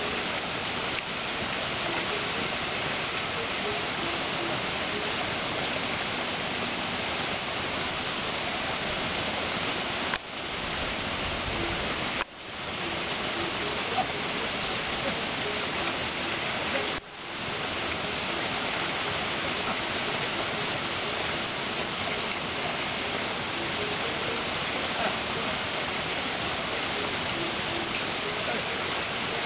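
Steady rush of water running through a flooded rice paddy, dropping away briefly three times.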